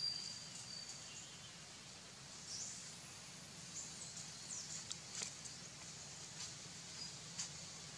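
Faint outdoor ambience: a steady low hum under scattered short, high chirps and whistles, with a few sharp clicks.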